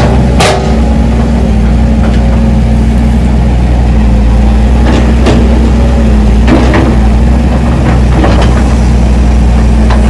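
Caterpillar hydraulic excavator's diesel engine running steadily and loud while it works, with a few scattered knocks as it loads soil into a dump truck.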